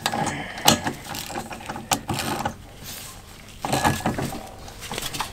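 Socket ratchet clicking, with irregular metal clinks, as the bolts of a flywheel puller are tightened onto a two-stroke Tecumseh mower engine's flywheel.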